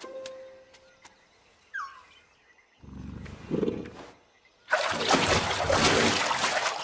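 Alligator growling low, then letting out a loud hissing roar for about two seconds near the end. A short falling squeak comes before the growl.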